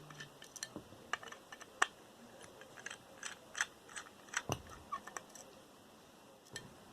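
Scattered small metal clicks and taps from a hard drive's parts being worked apart by hand, with one duller knock about four and a half seconds in.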